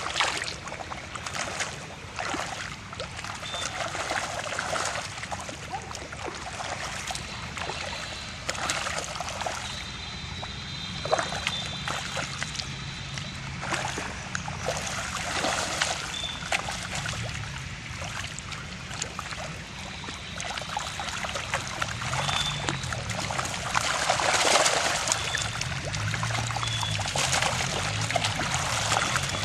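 Water trickling and splashing, with irregular small splashes throughout.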